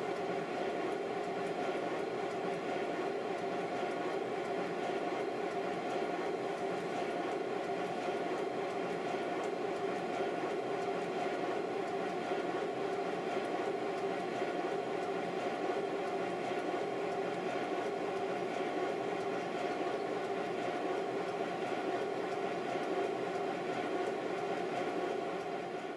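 Steady mechanical running noise of a 5-inch gauge Stirling Single model locomotive's driving wheels and motion turning over, even and without exhaust beats, with a faint steady hum.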